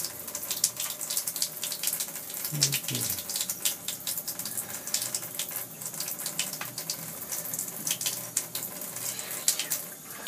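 Shower water running steadily and spattering onto a bathtub floor, with many small sharp splashes over the flow.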